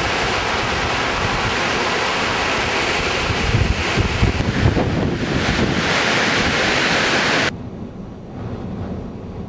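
Gale-force wind gusting. A loud rushing hiss runs over ragged low buffeting on the microphone. About seven and a half seconds in, the rush cuts off suddenly, leaving a quieter low wind rumble.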